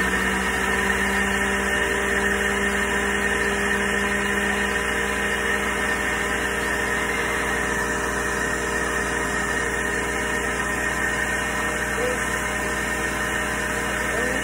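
Electric Fusion juicer's motor running steadily at speed, a little loud, as cucumber pieces are fed through it for juice.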